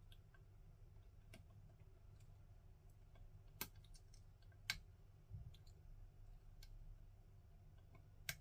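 Faint, sparse metallic clicks of a lock pick and tensioner working the pins of an ASSA Desmo lock cylinder, with three sharper clicks standing out over a low room hum.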